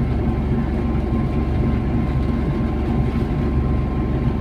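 Engine and road noise inside the cabin of a moving vehicle: a steady low drone with a faint constant whine above it.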